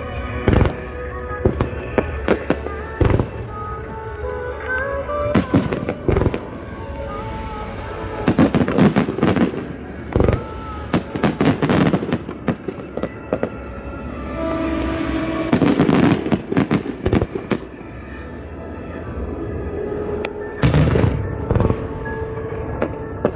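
Aerial firework shells bursting in clusters of sharp bangs throughout, with crackle between them, over music playing in the background.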